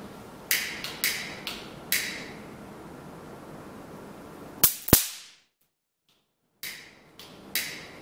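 Sharp cracks of tiny samples (under 0.1 g) of wet silver fulminate detonating as they are touched with a long-handled tool, each echoing off the hard room. About four come in the first two seconds, the two loudest about five seconds in, and a few more near the end.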